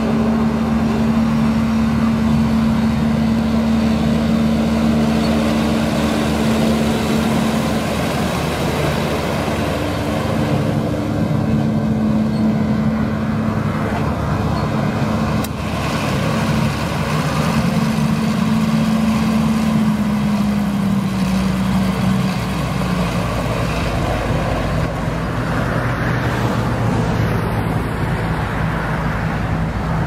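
John Deere 7920 tractor's six-cylinder diesel engine running steadily as the tractor drives; its pitch drops a little about three quarters of the way through.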